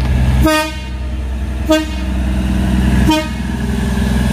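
KA Solo Ekspres diesel railcar sounding its horn in three short toots about a second and a half apart, over the steady low running of its diesel engine.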